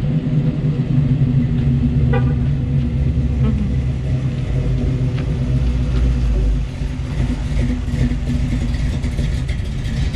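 Engine of a black vintage hot rod coupe, running loud and steady as the car pulls across the street and drives slowly past close by. Its pitch drops a step about three and a half seconds in.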